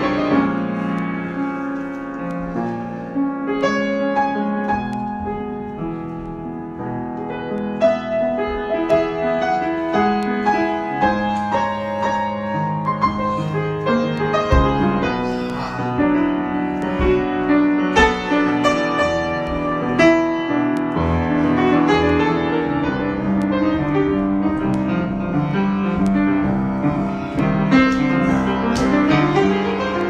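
Solo grand piano improvisation, a continuous flow of chords and melodic notes.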